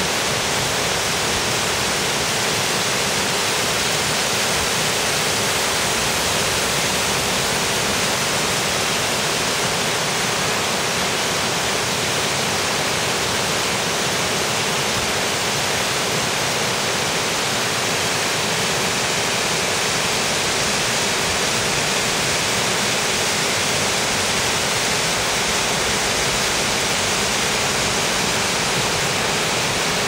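Radau Waterfall pouring over ice-hung rock: a steady, unbroken rush of falling water.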